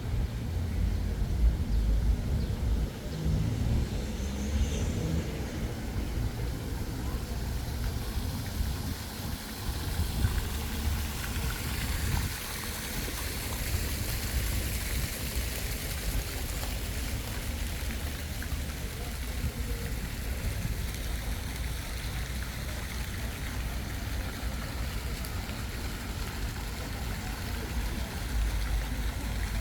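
Outdoor street ambience heard while walking: a steady low rumble with a faint even hiss above it, and no distinct events.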